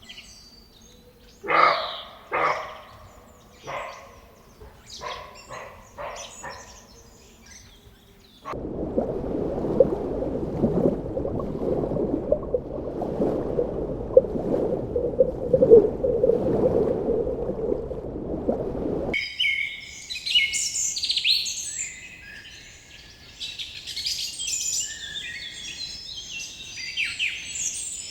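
Animal sounds in three spliced parts: a few short separate calls, then about ten seconds of dense low noise, then quick high-pitched bird chirping.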